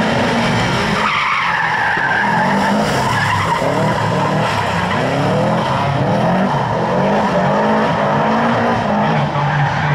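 Four-wheel-drive rally car driven hard, its engine revving up and down repeatedly through gear changes as the tyres skid and squeal on tarmac.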